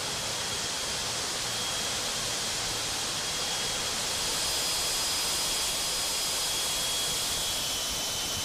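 Steady rush of wind and engine noise through the open paratroop door of a C-17 Globemaster in flight, with a faint high whine held above it.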